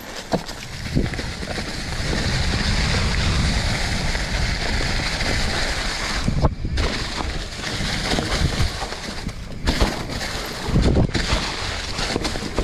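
Mountain bike rolling down a dirt singletrack: tyres crunching through dry fallen leaves, with steady wind rush and rumble on the handlebar camera's microphone.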